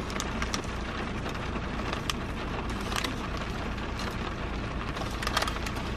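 Heavy rain falling, a steady hiss dotted with many small drop ticks, with a short flurry of sharper ticks near the end.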